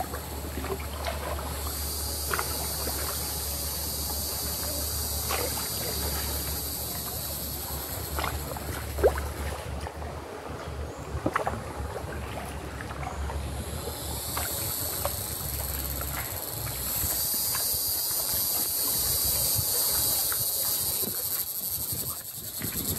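Canoe gliding through calm water, with scattered paddle splashes and knocks against the hull. A steady high-pitched buzz runs through most of it, fading out about ten seconds in and returning a few seconds later, over a low rumble that stops about two-thirds of the way through.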